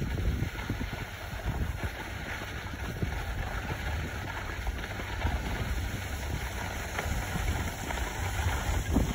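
Wind buffeting the microphone of a phone carried downhill by a skier, a steady gusty rumble, with the hiss of skis sliding over groomed snow.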